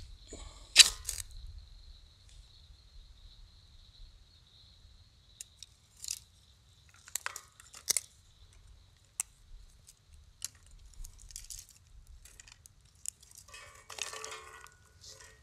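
Twigs and kindling being handled and lit for a small campfire: sharp snaps about a second in, then scattered crackles and pops from the burning twigs, with a longer rustling crackle near the end. A faint steady high whine fades out a few seconds in.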